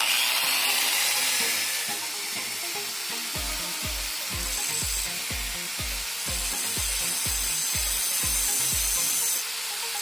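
Electric angle grinder starting abruptly and grinding into a rusted steel car door hinge at its pivot pin. The grinding note shifts as the disc bears down on the metal. A faint background music beat runs underneath from a few seconds in.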